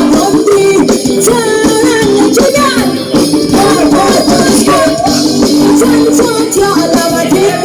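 Background music: a Thai song, with a voice singing a wavering melody over steady accompaniment and light shaker-like percussion.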